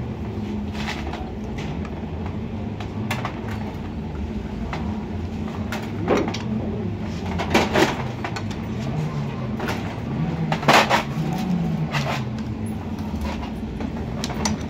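Sharp metallic clicks and knocks from a wrench and bar being worked against the rocker arms and valve gear of a 200cc loader-rickshaw engine's cylinder head, about half a dozen spread through, over a steady low hum.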